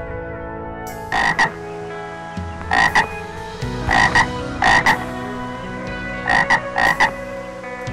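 A frog calling: short croaks in quick pairs, about six pairs, starting about a second in.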